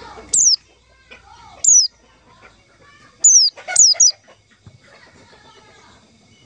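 Pleci (white-eye) calling: five short, sharp, high-pitched notes that each slide quickly downward. Two are spaced apart at the start, then three come in quick succession about three to four seconds in.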